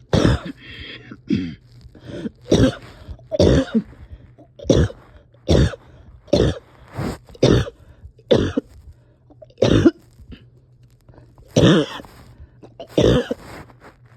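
A person coughing over and over, about fifteen short coughs at roughly one a second: a coughing fit in someone who is struggling to breathe.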